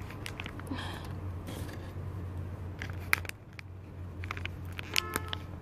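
Hands working a plastic bag and a foam to-go box: scattered clicks and crinkles, a short rustle about a second in, and a brief squeak about five seconds in, over a steady low hum.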